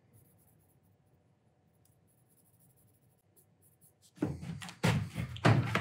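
A steel chisel in a honing guide is worked back and forth on a Japanese waterstone, making loud rasping strokes about twice a second, starting about four seconds in. Before that it is nearly quiet, with only the faint scratch of a marker inking the bevel.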